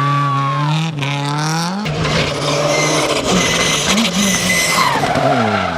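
Rally car engine revving hard, with a break in the note about a second in, like a gear change, before it climbs again. From about two seconds in, a loud rushing noise of tyres on the stage joins the engine. The engine note falls near the end.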